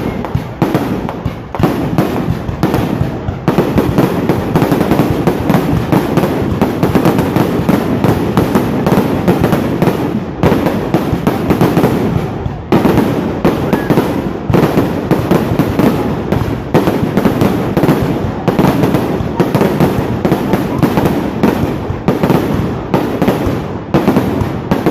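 Fireworks going off in a dense, continuous barrage of bangs and crackles, with brief lulls about ten and twelve seconds in.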